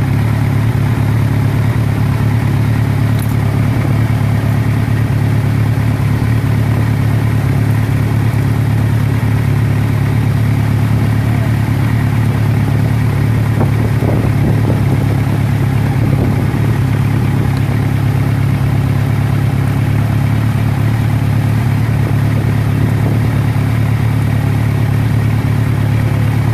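An engine running steadily at idle, a constant low hum that does not change.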